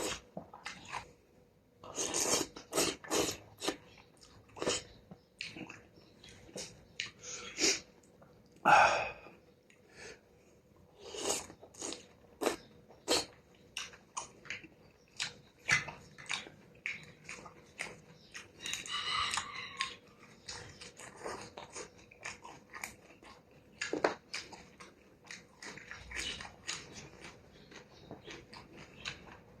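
A person chewing and biting through a bowl of beef noodle soup with stewed beef and beef balls, close to the microphone: irregular mouth smacks and clicks, sometimes several in quick succession.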